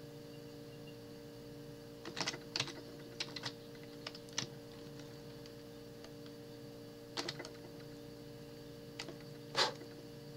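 Computer keyboard keys tapped in a few short, scattered clusters, over a steady low hum.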